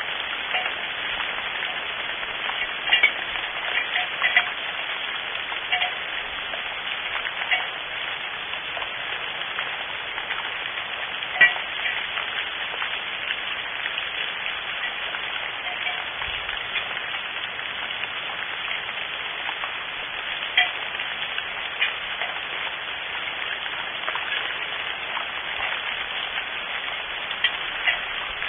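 Steady rain, with a sharp louder drip every few seconds.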